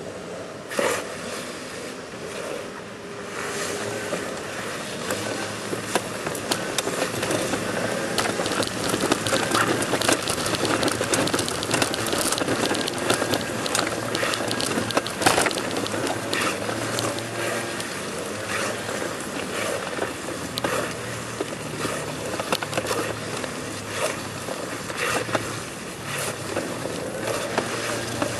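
Body and clothes scraping and rustling against stone paving as a person belly-crawls along the ground, a steady rough scraping full of small clicks and crackles that grows louder a few seconds in.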